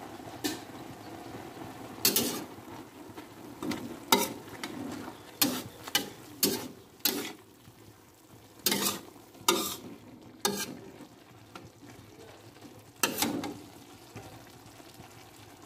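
Metal spatula scraping and stirring in a steel wok of greens simmering in a little water: about a dozen irregular strokes, over a faint steady sizzle.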